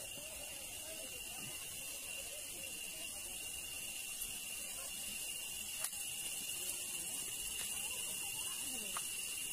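Insects droning steadily on one high pitch, with faint voices in the background and a light click about six seconds in.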